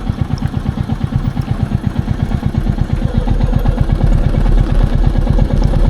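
Royal Enfield Meteor 350's single-cylinder engine running at idle: an even, steady thump of about nine beats a second, getting a little louder after about three seconds.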